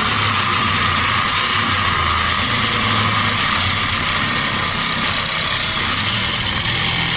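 Power tool cutting through rusted sheet metal on an old truck door, a loud steady noise that does not let up.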